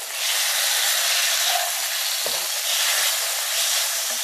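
Chicken pieces frying in hot oil in a non-stick kadhai: a steady, loud sizzle, with a spatula stirring them and a light knock a little over two seconds in.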